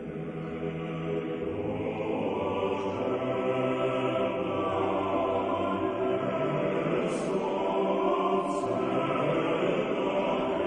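A choir singing a slow chant, the voices holding long chords that shift slowly from one to the next.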